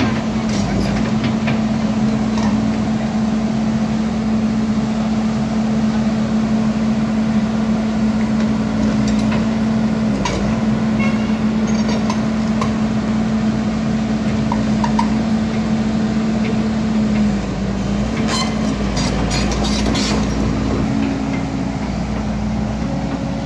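Volvo EC210 crawler excavator running under load: a steady engine and hydraulic drone that sags briefly a few times. A run of sharp metallic clanks comes near the end.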